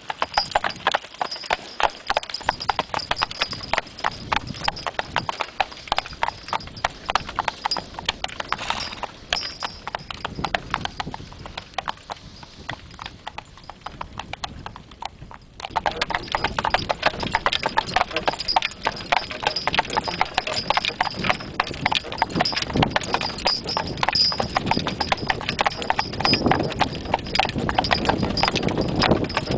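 A team of horses walking with their hooves clip-clopping, amid a dense, rapid clicking rattle. The sound changes abruptly about halfway through and is louder after that.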